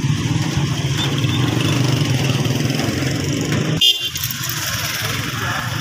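Street traffic noise, with engines and motorcycles running steadily. A brief horn beep sounds about four seconds in.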